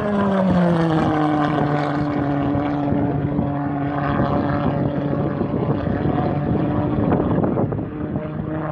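Kerosene-fuelled engine of a delta-wing model jet flying past overhead. Its pitched buzz drops in pitch over the first second or so as the jet passes, then holds steady as it climbs away.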